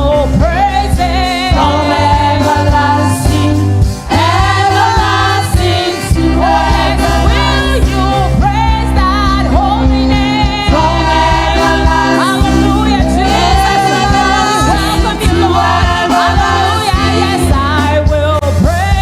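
Praise team singing a gospel worship song, voices over a band with steady bass notes.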